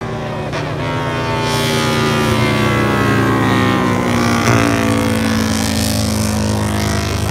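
Racing motorcycle engines running hard on a circuit, their pitch falling steadily for a few seconds, with a sudden step in the engine note about four and a half seconds in.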